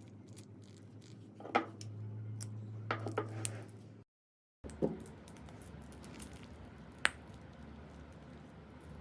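Slime being squished and worked by hand, with scattered sharp clicks and small pops over a low steady hum, broken by a brief dead silence a little after four seconds in.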